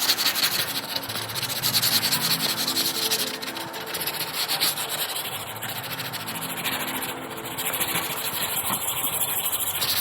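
Sanding block rasping back and forth over cured body filler on a car panel: block sanding the filler flat to level out small dents.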